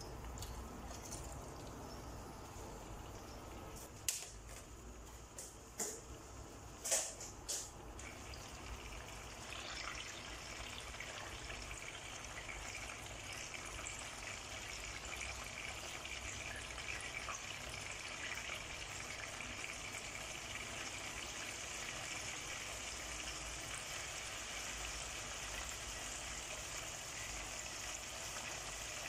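A few sharp knocks as raw chicken pieces are tipped from a colander into a pot of oil, then a steady sizzle of the chicken starting to fry, building from about ten seconds in and holding.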